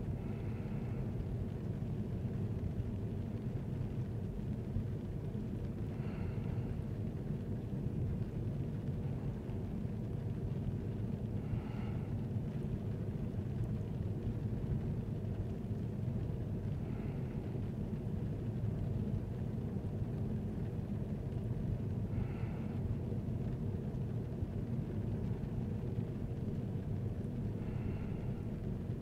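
Steady low rumble of a vehicle driving, engine and road noise heard from inside the van. A faint, short, higher sound comes about every five or six seconds.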